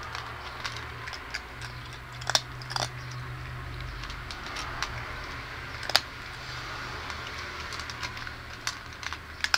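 A cat crunching dry kibble, eating from a metal bowl: irregular sharp crunches, a few much louder than the rest.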